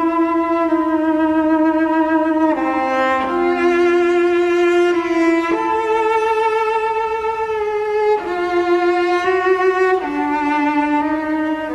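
Music interlude on bowed strings: a slow melody of long held notes with vibrato, the note changing about every one to two seconds.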